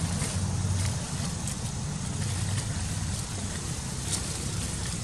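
Steady low rumbling background noise with an even hiss and a few faint ticks.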